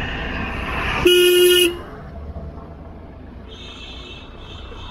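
A vehicle horn gives one short honk, about half a second long, about a second in. It sounds over the steady low rumble of a motorcycle riding along.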